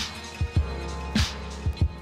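Background music: a beat-driven electronic track with a steady drum beat, about two hits a second, over sustained bass notes.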